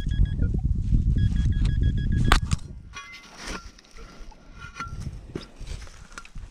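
Metal detector beeping in quick pulsed bursts over a dug hole, the sign of metal in the soil, twice in the first two seconds. The beeps sit over rough scraping and rustling of digging in loose soil, with one sharp knock about two seconds in, then quieter rustling.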